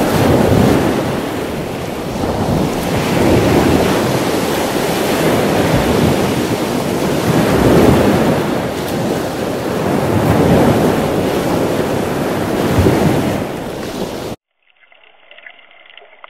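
Ocean waves washing, a steady rush of surf that swells and ebbs every two to three seconds. It cuts off suddenly near the end, giving way to a much fainter, muffled sound.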